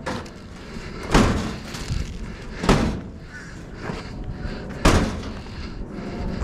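Three heavy bangs and thuds, about one and a half to two seconds apart, each trailing off briefly: heavy discarded machines being shoved and knocked into place while being loaded for scrap.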